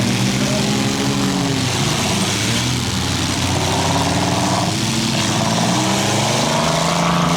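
Engines of several small demolition-derby cars running and revving together, their pitches rising and falling against one another over a steady din.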